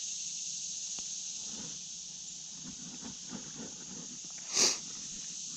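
Steady high-pitched chorus of insects, with a short burst of noise about four and a half seconds in.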